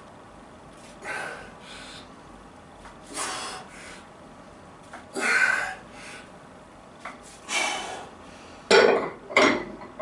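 A man breathing out hard with each rep of heavy dumbbell shrugs, a forceful breath about every two seconds. Near the end of the set two louder, more strained breaths come closer together.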